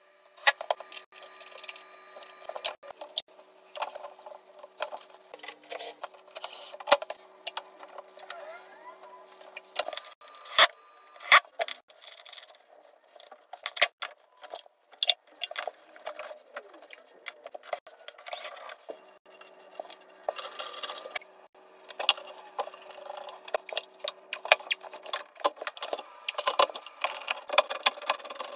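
Scattered clicks, knocks and scrapes from handling tools and fitting PVC drain pipe and a P-trap, with a faint steady hum underneath for long stretches.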